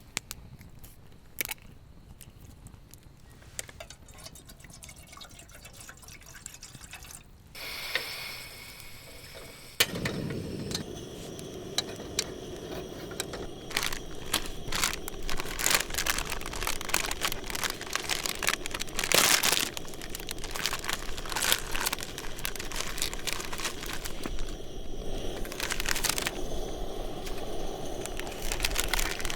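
Wood campfire burning: sparse faint pops at first, a brief hiss, then from about ten seconds in a steady rush of flames with dense crackling and popping.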